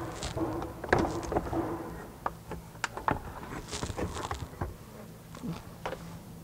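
Scattered clicks, knocks and scraping as a car's plastic undertray (air shield) is worked loose and pulled down from under the front bumper.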